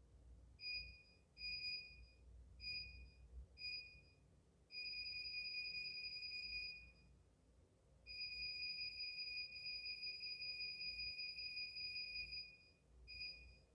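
A high, steady-pitched beeping tone: four short beeps, then two long held tones of about two and four seconds, then one more short beep near the end.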